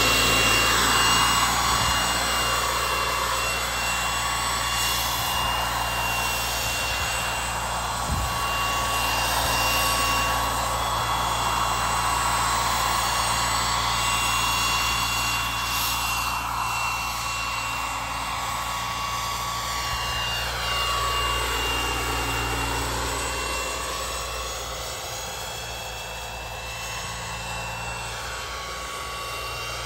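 Small kerosene turbine engine of a Whiplash 700 RC helicopter running with a steady high whine over the rush of its spinning rotor blades as the model lifts off and flies. In the second half the sound sweeps and swirls and grows fainter as the helicopter moves away.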